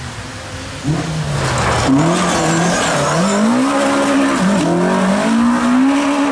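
Rally car's engine revving up and down repeatedly as the car slides off the gravel stage and rolls onto its side, over loud noise of tyres and gravel. The engine sound comes in suddenly about a second in.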